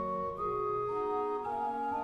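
Pehr Schiörlin's 1785 pipe organ playing several voices of held notes that move to new pitches about every half second.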